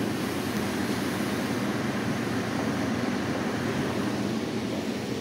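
HHO (oxyhydrogen) generator machine running at 1 bar pressure, giving a steady, even noise that sits mostly low.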